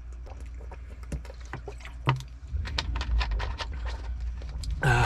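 Drinking Coca-Cola from a bottle: a string of irregular gulps, clicks and liquid sounds, ending in a short burp.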